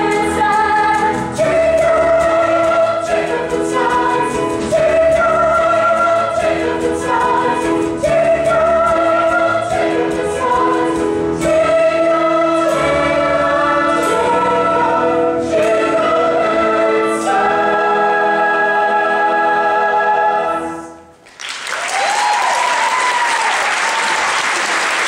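Large mixed cast chorus singing a musical-theatre number with a pit orchestra, ending on a held final chord about 21 seconds in. The audience then breaks into loud applause.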